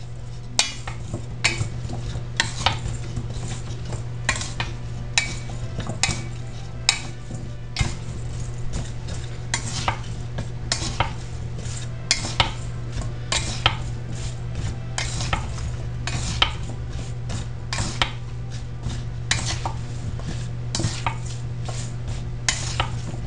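Wooden turner stirring and tossing oil-coated butternut squash cubes in a stainless steel mixing bowl: repeated clacks of wood against the metal bowl, about one or two a second, with the wet shuffle of the cubes between them, over a steady low hum.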